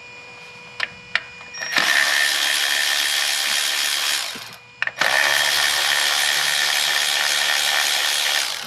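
Cordless power tool running in two long spins, a brief pause between them, with a steady whine. It is backing out the ignition coil pack bolts on a 2014 Toyota Corolla's engine. A couple of light clicks come just before.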